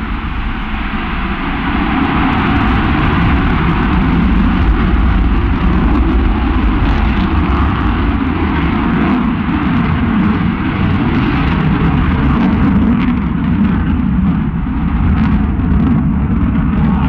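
Eurofighter Typhoon fighter jet's twin EJ200 turbofans roaring as the aircraft banks through a display turn overhead: a loud, continuous deep jet roar that swells and eases slightly.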